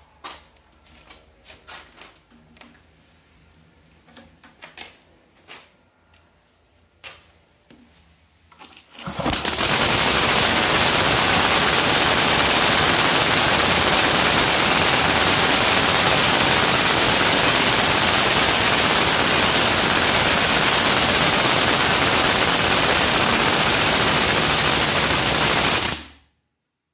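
Homemade 750cc radial engine on its first test start. After a few scattered clicks, it starts about nine seconds in and runs loud and steady as a dense, rapid clatter, then cuts off suddenly near the end.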